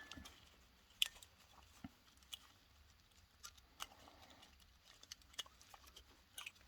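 Faint, scattered clicks and light taps as a Makita 18 V battery cell is handled and fitted into place in the pack.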